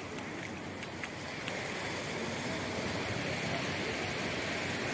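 Surf washing onto a flat sandy beach: a steady rush of breaking waves that grows slightly louder.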